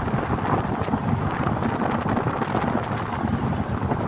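Wind buffeting the microphone through an open car window while driving, over steady road noise.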